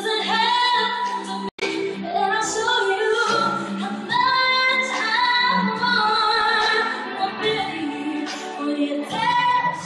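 Female pop vocalist singing live with musical accompaniment, heard through a phone's microphone in a large arena. The sound drops out for an instant about a second and a half in.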